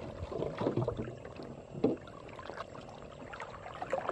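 Water sloshing and splashing as a person wades waist-deep through a pond, with a few splashes in the first two seconds and quieter lapping after.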